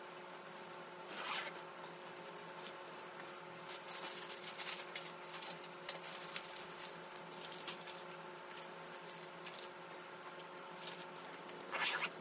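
Intermittent rustling and scratching as a duffel bag is handled, possibly including its zippers. There is a dense cluster of short scrapes a few seconds in and a louder bout of rustling near the end, over a faint steady hum.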